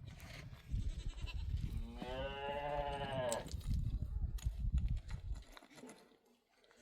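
A farm animal bleats once, one long call of about a second and a half starting about two seconds in, over a low rumble of noise that dies away near the end.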